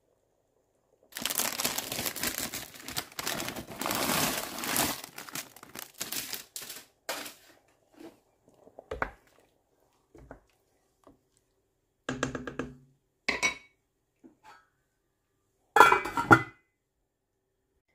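Packaging crinkling and rustling for a few seconds as it is handled, then scattered knocks and a few ringing clinks of kitchenware, the loudest near the end.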